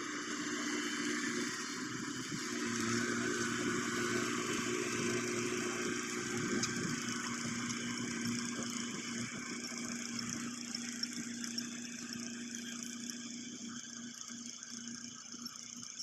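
Tracked rice combine harvester's engine running steadily, easing a little quieter near the end.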